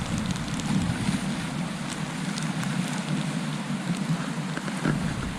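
Steady rushing of a flowing trout stream, with wind buffeting the microphone in a low, uneven rumble.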